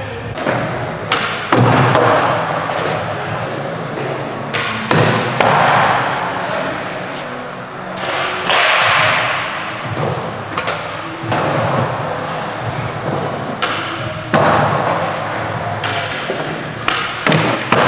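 Skateboard wheels rolling on a smooth concrete floor, broken several times by sharp board impacts: tail pops, landings and hits on a wooden box ledge. The hits echo in a large hall.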